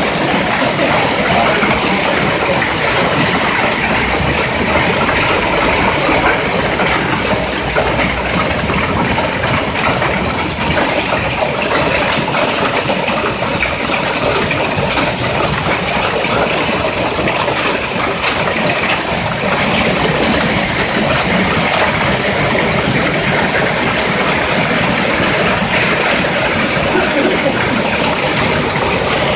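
Hail and heavy rain pelting the asphalt and parked cars, a loud, steady, dense patter of many small impacts.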